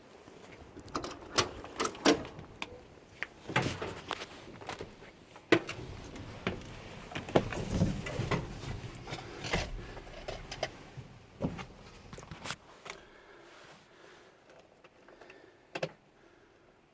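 Scattered clicks, knocks and rustling of handling, with no engine running. It falls almost quiet for the last few seconds, broken by one short knock.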